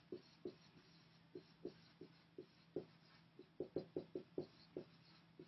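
Dry-erase marker writing on a whiteboard: a faint string of short, irregular squeaky strokes, coming thickest about three and a half to five seconds in.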